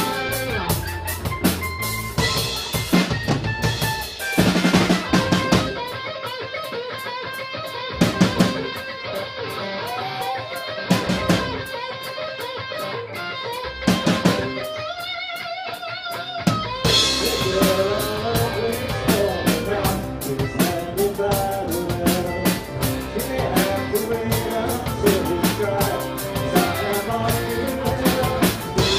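Live Celtic rock band playing, with electric guitars, bass guitar and drum kit. About six seconds in, the bass and kick drum drop out for a breakdown in which the guitars carry the tune over occasional drum hits. The full band comes back in about seventeen seconds in.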